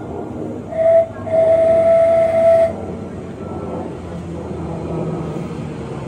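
Class 345 Elizabeth line electric train sounding its horn as it approaches: a short blast, then a longer one of about a second and a half, both on the same steady note. The rumble of the train running in follows.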